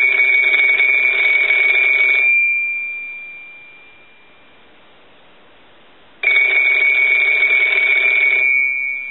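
Kellogg rotary telephone's bells ringing on a ring cycle: two rings of about two to three seconds each, each fading out, with about four seconds between them. The ring test shows the repaired phone rings in properly.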